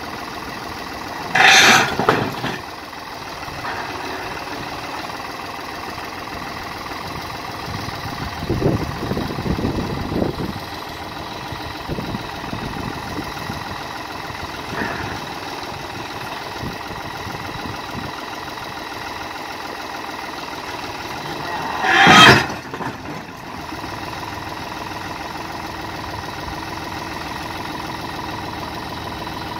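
New Holland tractor's diesel engine running steadily while its front loader works a boulder. There are two loud crashes of rock, about a second and a half in and about 22 seconds in, and some lighter scraping and knocking around 9 to 10 seconds.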